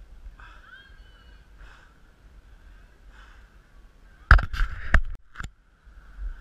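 Steel carabiners on a ropes-course safety lanyard clack against each other and the steel cable in a quick run of sharp metallic clanks about four seconds in, over a steady faint high drone.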